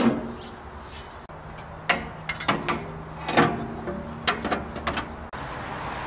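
Sheet-metal guard on a Woodland Mills HM126 bandsaw sawmill being handled and lifted off, giving a series of metallic knocks and clanks spread over several seconds.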